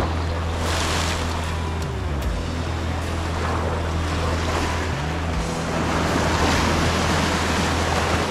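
Sea surf washing against a rocky shore, swelling about a second in and again later, with wind on the microphone. A steady low drone runs underneath, its pitch bending a few times.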